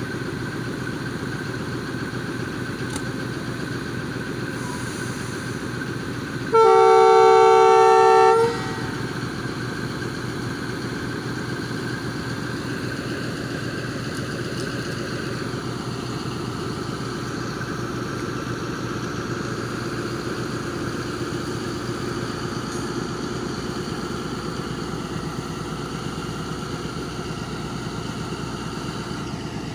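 Diesel locomotive engine running steadily at idle. About seven seconds in, one loud horn blast on a single note lasts about two seconds.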